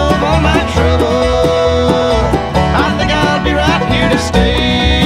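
Background music in a country or bluegrass style, with plucked strings over a steady beat.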